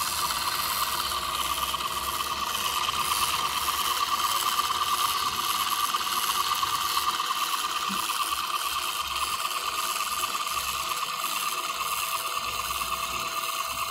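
Kodak Business Kodascope Model C film projector running: its motor and mechanism make a steady, rapid mechanical clatter.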